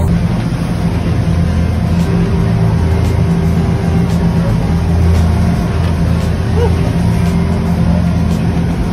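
A sportfishing boat's engine running steadily with a low hum while under way, over a constant rush of wind and water from the boat moving through rough, whitecapped water.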